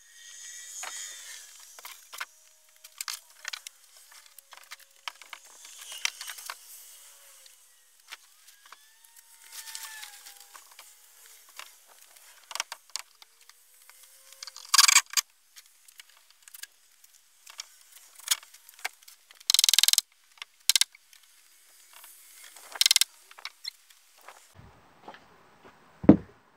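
Handheld camera being handled and moved: scattered rubbing and clicking noises, three short loud scrapes, and a heavy thump near the end.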